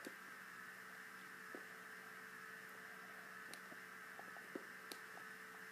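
Near silence: a faint steady hum with a few faint scattered ticks.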